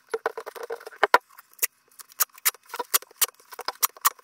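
Duct tape being pulled off the roll and pressed onto a stainless-steel bowl mould: a run of irregular sharp crackles and clicks.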